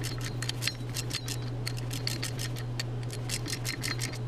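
Ratchet wrench clicking in quick, uneven runs as the bolts of a connecting rod cap are run down over Plastigage to check rod bearing clearance, over a steady low hum.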